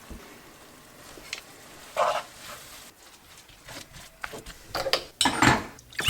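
Kitchen utensils knocking and clinking against dishes and a pot while cooking: a few separate knocks, then a busier clatter near the end, the loudest hit about five and a half seconds in.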